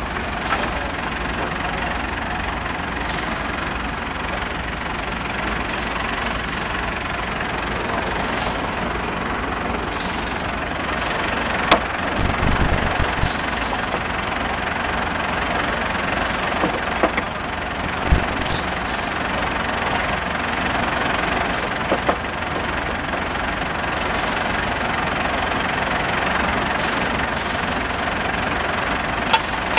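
Caisson core drilling rig running steadily, with a few sharp metallic knocks, the loudest about twelve and eighteen seconds in.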